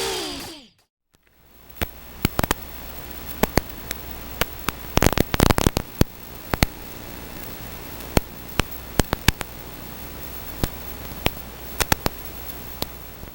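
The 6S drone's motors whine and fall in pitch as they spin down, stopping within the first second. Then a low steady hiss with scattered sharp clicks and ticks follows, with a quick run of them about five seconds in.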